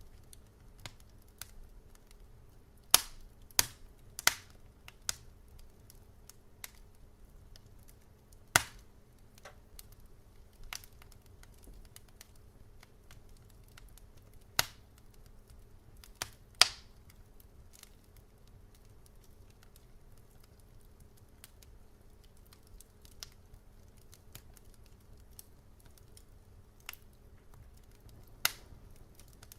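Fireplace fire crackling: sharp irregular pops and snaps, a few close together then spaced out by several seconds, over a faint low steady bed.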